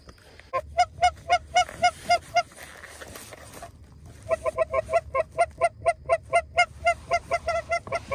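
Goose honks in quick, evenly spaced runs: about nine short honks, a pause of a couple of seconds, then a faster run of about five honks a second that keeps going.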